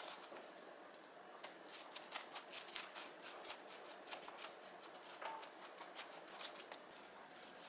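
Quiet, irregular sticky clicks and pats of a spoon and fingers spreading wet chili-soy seasoning paste onto stacked perilla leaves.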